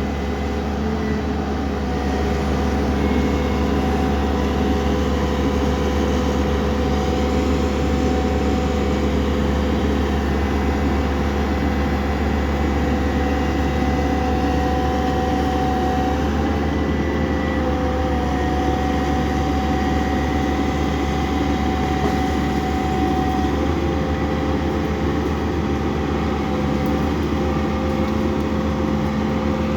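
Excavator's diesel engine running steadily under load, with a low hum and a whine that shifts slightly in pitch a few times.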